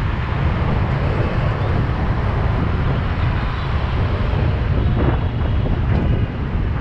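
Steady motorbike and car traffic heard from within moving city traffic, with a loud low wind rumble on the microphone.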